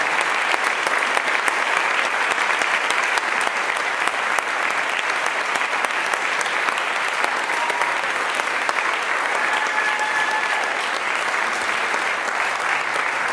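Audience applauding steadily: a dense, even patter of hand clapping.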